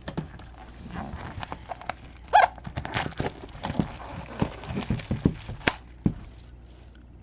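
Plastic shrink wrap being torn and peeled off a cardboard box: irregular crinkles and crackles that die down about six seconds in.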